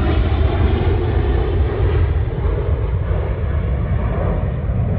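Boeing 747's four jet engines at takeoff thrust as the airliner lifts off and climbs away: a steady, deep rumble whose higher hiss slowly thins as it recedes.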